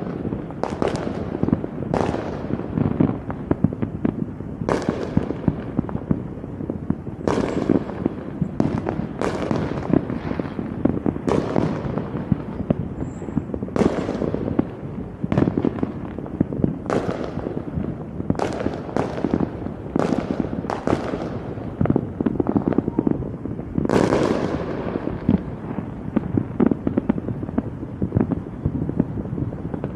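Fireworks going off in rapid, uneven succession: many sharp bangs, each trailing off in an echoing rumble, over a constant dense crackle of smaller explosions.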